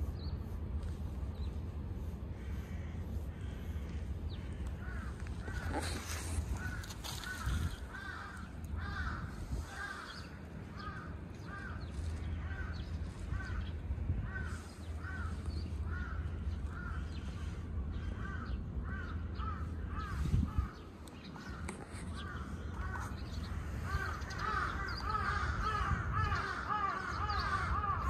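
Crows cawing: a long series of short, evenly repeated caws about one a second, then several calls overlapping near the end, over a low steady rumble.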